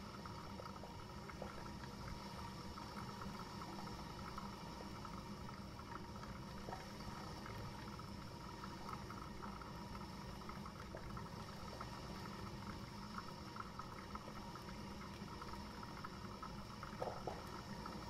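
Coffee maker brewing: a steady watery sound over a low hum, with a few faint clicks near the end.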